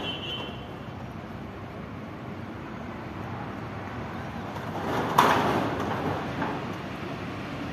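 Background traffic noise, with one vehicle swelling past about five seconds in, marked by a sharp knock at its loudest.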